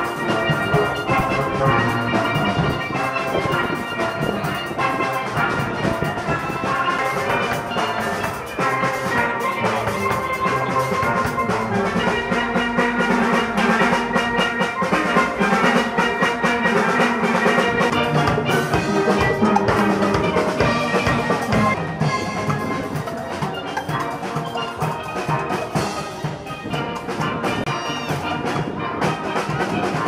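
A steel band playing a tune: chrome tenor pans carry the melody over the deep notes of oil-drum bass pans, every note struck with sticks.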